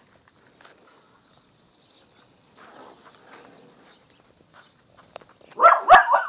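Faint tapping and scuffling of paws on stone paving, then near the end a short burst of loud, high-pitched yelps from a puppy as the pups tussle with their mother, with one low knock among them.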